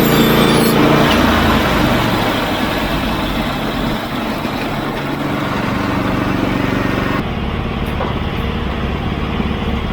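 Norwood portable sawmill running: its engine drones under load while the blade cuts through a red pine log, with a steady high hiss of cutting that drops away about seven seconds in as the engine runs on.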